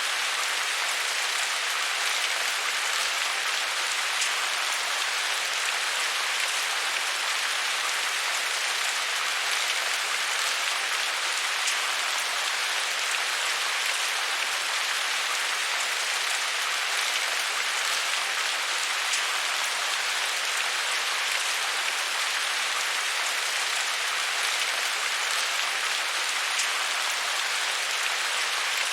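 Heavy rain falling steadily: a dense, even hiss of rain on a surface with faint scattered drop ticks.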